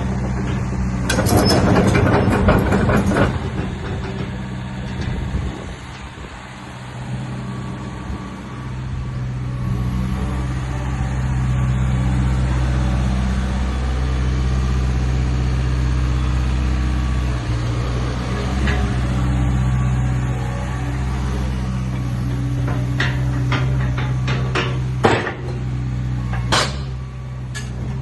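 Hyundai HX140L excavator's diesel engine running steadily, with a loud, noisy clatter in the first few seconds and a series of sharp knocks near the end.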